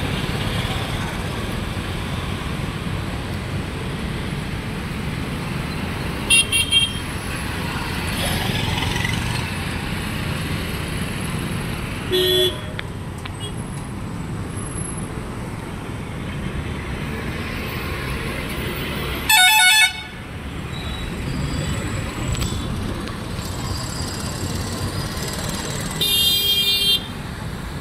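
Steady road traffic of motorbikes, scooters and cars, with vehicle horns honking: two quick toots about six seconds in, a short one around twelve seconds, the loudest a little before twenty seconds, and a longer one-second honk near the end.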